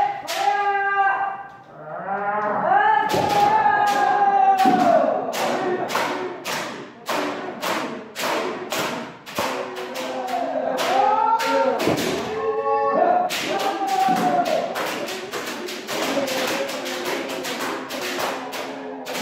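Kendo practice: bamboo shinai strikes and stamping footwork knocking two or three times a second, over long drawn-out kiai shouts from several people.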